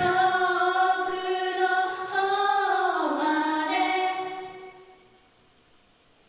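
Female voices of a pop idol group singing together without backing instruments: a held line that slides down in pitch about three seconds in and fades out by about four and a half seconds, leaving near silence.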